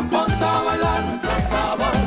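Salsa music with a steady beat, drums and bass under a melody line.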